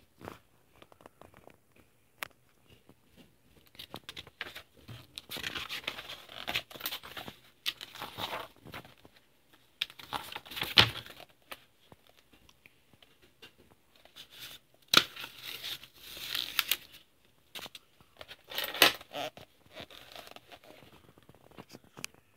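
Paper handled by hand: a comic book and loose sheets of notepaper rustling and crinkling in four or five bursts, with a few sharp snaps, the loudest about halfway through.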